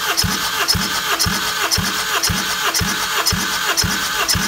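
Hyundai G4KJ 2.4-litre four-cylinder engine cranking without starting, turned over for a compression test of its third cylinder. A steady whine is overlaid with an even thump about twice a second. The cylinder holds about 13 bar.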